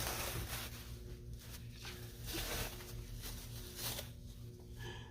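Fabric and packaging rustling and swishing as they are handled, in several separate strokes, over a low steady hum.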